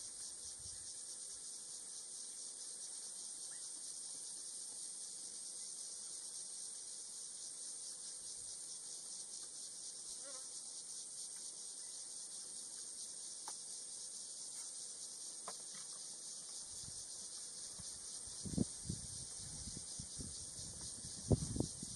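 Steady, high-pitched chorus of insects with a fast fine pulse, running unbroken, with a few faint short chirps over it. Near the end come several low thuds.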